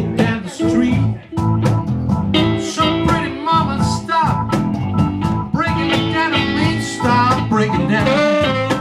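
A live blues band playing: guitar and saxophone over a steady beat.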